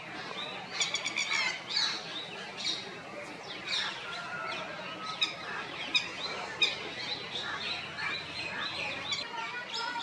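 Several birds chirping and calling in short, sharp, mostly falling notes, with a quick rattling run of notes about a second in.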